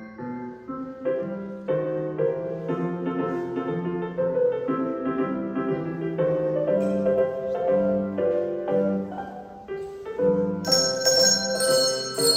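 Christmas medley on a piano accompaniment, one note after another. Handbells come back in with bright, high ringing notes about ten seconds in.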